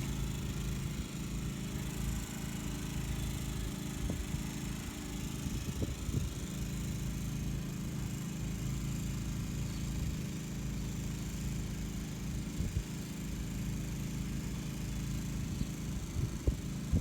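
Westinghouse WH2000iXLT inverter generator running in eco mode with no load, a steady, even low hum that reads roughly 65 decibels on a phone app.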